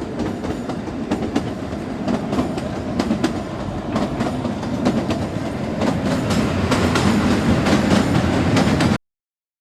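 Kalka–Shimla narrow-gauge toy train running, a steady rumble with its wheels clicking over the rail joints. The sound cuts out completely for about half a second near the end.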